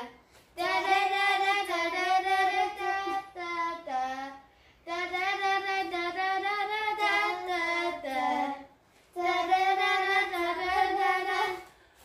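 Young girls singing a wordless 'da da da' tune in unison to keep time for a dance, in three long phrases with short breaks between them.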